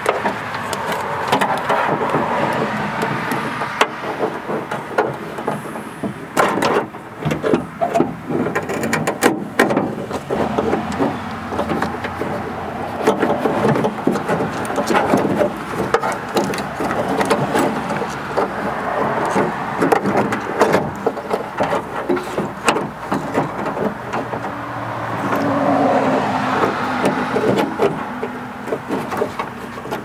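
The front door latch assembly of a 2005–2010 Honda Odyssey being worked back into the door's sheet-metal cavity: repeated clicks and knocks of metal parts against the door, over a continuous noise.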